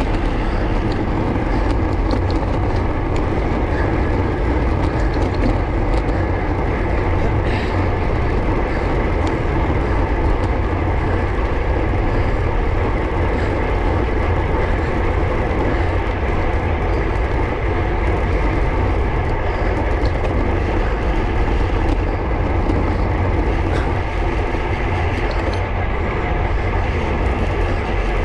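Wind rushing over the microphone of a road bike ridden at speed, a steady low rumble, with the hum of the tyres on tarmac underneath.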